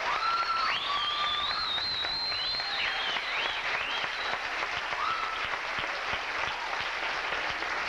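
Audience applauding steadily after a song, with shrill rising and falling whistles over the clapping in the first few seconds and once more about five seconds in.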